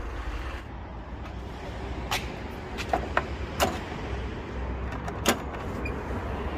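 Several sharp clicks and knocks, about five of them spread through the middle, over a steady low hum.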